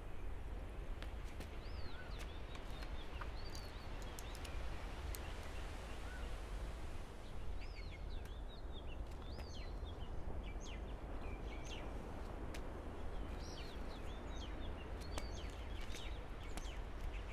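Quiet ambience of birds chirping in short calls over a steady low hum and noise, with scattered faint clicks.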